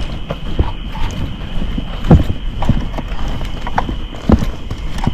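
Footsteps of a person walking along a road at a steady pace, about two steps a second.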